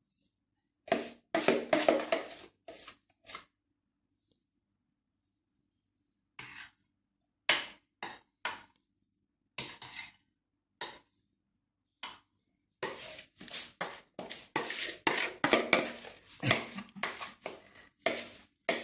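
A spoon scraping and knocking against a plastic bowl and dish as whipped cream is spooned out, in short scattered bursts, with a denser run of scraping over the last few seconds.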